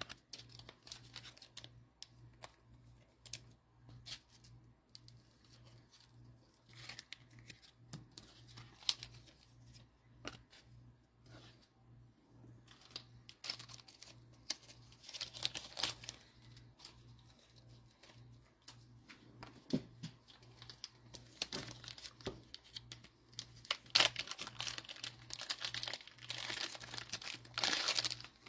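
Cellophane-wrapped trading card packs being torn open and the wrappers crinkled, in scattered faint crackles and ticks that get busier around the middle and near the end.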